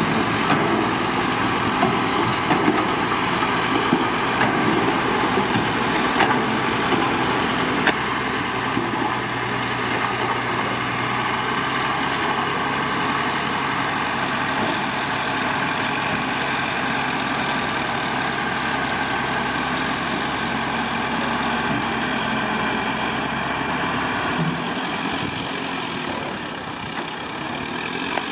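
Heavy diesel engine of earthmoving machinery running steadily, with a few sharp knocks in the first eight seconds. The low engine note drops away about 25 seconds in.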